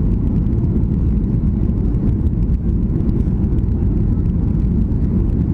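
Steady low rumble of cabin noise inside a Boeing 737 climbing out after takeoff: the jet engines and rushing air, even and unbroken.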